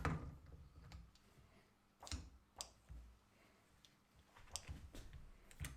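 A brake caliper being handled and set into a bench vise: a handful of light metallic clicks and knocks, spaced irregularly a second or so apart.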